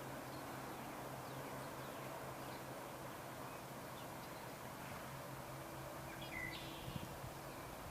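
Faint steady outdoor background noise with a low hum, and a few faint bird chirps, the clearest about six seconds in.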